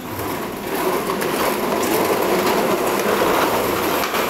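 Hard plastic wheels of children's swing cars rolling fast across a tiled floor: a steady, loud rolling rumble that builds about a second in.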